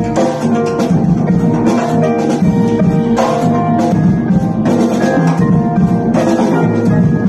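Improvised duo music: the strings of a swarsangum, a table-top stringed instrument, ringing in held tones over busy drum-kit playing, with two louder strikes about three and six seconds in.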